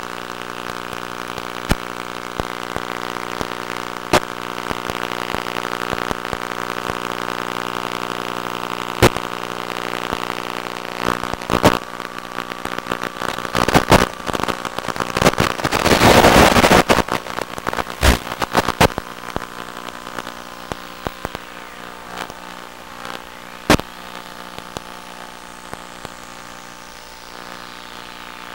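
A steady buzz that does not change in pitch, with sharp pops and crackles every few seconds. A loud rush of noise and crackling comes about halfway through, then the buzz goes on more quietly.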